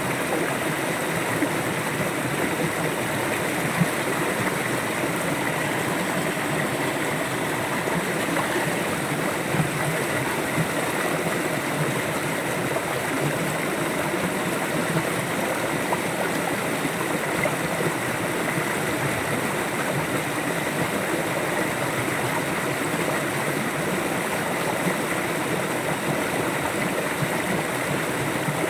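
A river flowing steadily, an even rushing of water with a couple of brief louder splashes.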